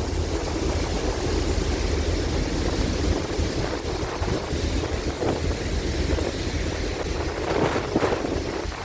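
Wind buffeting the microphone aboard the ferry Diagoras under way, over the steady low hum of the ship's engines and the rush of the sea, with a stronger gust near the end.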